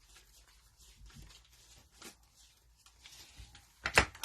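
Quiet handling of trading cards and cellophane pack wrappers, with faint rustles and ticks, then a short loud tear near the end.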